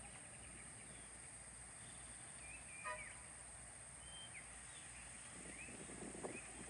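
Faint outdoor ambience under a steady hiss, with a few short, high bird chirps that glide up or down in the middle. Some low, rough noise rises near the end.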